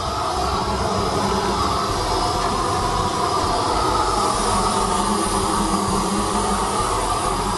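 Propane weed-burner torch burning with a steady rush of flame, blown into the steel cooking chamber of an offset smoker to preheat it.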